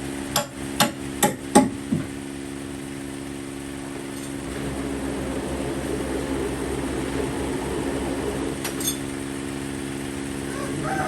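A machine hums steadily in the workshop. Over it, about six sharp metallic clinks or knocks come in quick succession, two to three a second, in the first two seconds.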